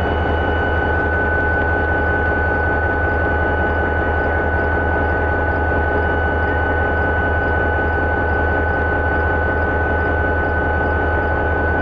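Diesel-electric locomotive engine running steadily: a deep drone with a steady high whine over it.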